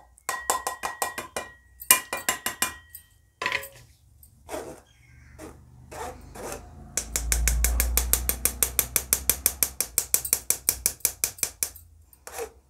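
Stainless steel mesh sieve sifting gram flour, tapped and shaken over a bowl with a spoon worked through the mesh. It makes quick metallic ticks and light scraping, then a fast even tapping of about eight ticks a second from about halfway until near the end.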